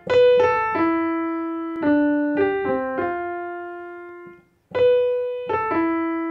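Piano sound played one note at a time on a keyboard: the seven-note melody B, A, E, D, G, C, F in C major. The last note is left to ring and fade away, and the melody starts again near the end.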